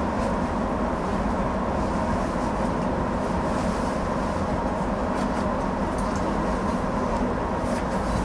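A stopped 205 series electric train's onboard equipment humming steadily, heard from the driver's cab: a low rumble with a thin steady whine and a few faint clicks.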